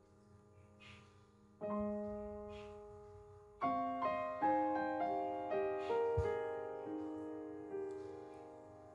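Soft piano music: a chord struck about one and a half seconds in, then a slow run of single notes from about three and a half seconds in, each left to fade.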